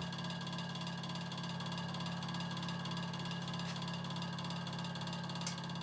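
Early-1950s Vornado Jr. table fan's two-pole shaded-pole motor running with a steady hum, quite noisy. The motor is shot: its windings are thought to be burned and shorted, so it turns at only about a third of its speed. A short tick near the end.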